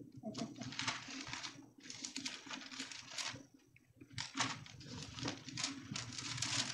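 Bible pages rustling as they are leafed through, a run of short papery rustles with a brief lull about three and a half seconds in.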